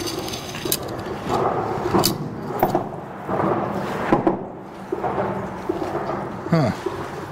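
A drum fish being unhooked and handled by hand: scattered sharp clicks and taps, with low murmured vocal sounds in between and a short falling groan-like sound near the end.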